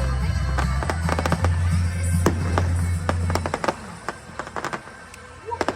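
Fireworks bursting with many sharp cracks and crackles over show music with a heavy low rumble. The low rumble drops away about three and a half seconds in, leaving scattered crackling pops.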